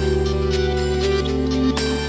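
Background music of steady held chords, playing over the closing end card.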